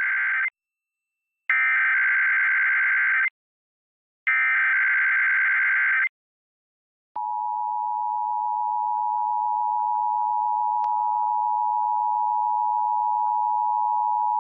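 Emergency Alert System SAME header: the end of one burst of rapid warbling data tones, then two more bursts, each under two seconds with a second's gap between them. About a second later the two-tone EAS attention signal begins and holds steady.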